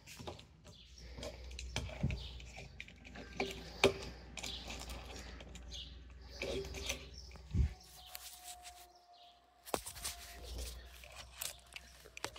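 Faint outdoor background with scattered clicks and knocks and a few faint bird chirps.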